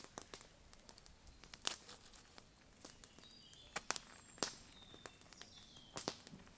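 Hands patting and packing wet clay around a foil-wrapped chicken beside a wood campfire, with scattered sharp crackles and clicks. A bird gives a few short high chirps partway through.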